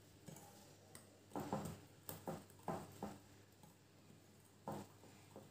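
Wire whisk stirring dry flour into wet ingredients in a mixing bowl, the whisk knocking against the bowl in a series of soft, uneven taps, most of them in the middle and one more near the end.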